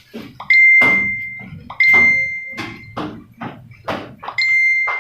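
Three loud, high electronic beeps, each a steady tone that lasts about a second and fades, irregularly spaced, among scattered sharp clicks and knocks.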